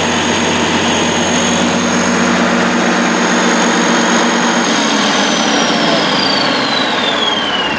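Kohler 100 kW diesel generator running with no muffler, a steady engine sound with a high whine over it. A little under five seconds in the sound changes and the whine starts falling steadily in pitch.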